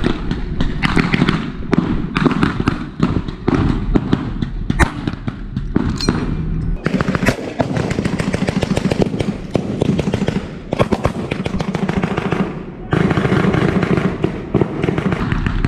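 Blank gunfire in a staged battle: many sharp shots from small arms, some coming in rapid strings, overlapping one another over a steady low rumble.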